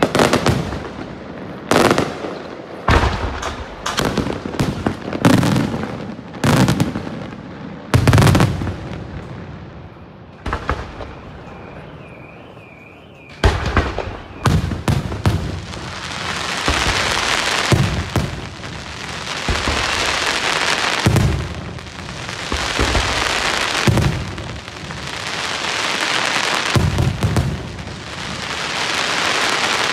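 Daytime fireworks: aerial shells bursting with a series of sharp separate bangs, a short lull, then from about halfway through a dense, continuous crackling that swells and fades in waves.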